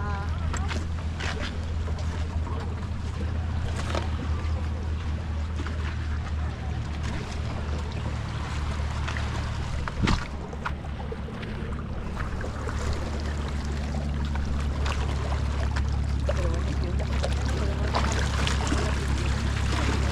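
Boat engine running steadily with a low, even drone, with a sharp knock about halfway through and faint voices in the background.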